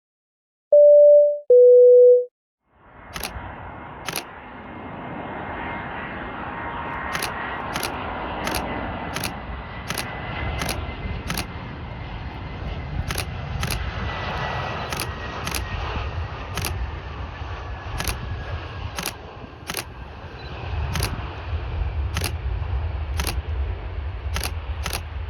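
Two short electronic beeps, the second lower, then an Airbus A320's jet engines on its landing approach: a steady whine over a broad engine noise that builds, with a low rumble growing stronger near the end. Sharp camera-shutter clicks come again and again over the engine sound.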